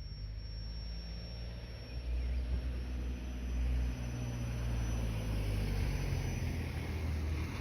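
A low, steady droning hum in the sky, made of several deep tones together, growing louder about two seconds in and holding; the sound is called a very weird sound.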